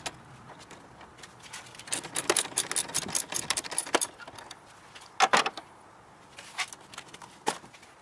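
Socket ratchet clicking rapidly for about two seconds as it loosens the clamp nut on a car battery terminal, followed by a few separate metallic clinks.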